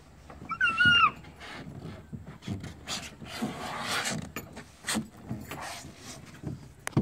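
A young child's short, high-pitched squeal about half a second in, the loudest sound. It is followed by scattered bumps and a rubbing, rushing noise around the middle as a child slides down a plastic spiral slide.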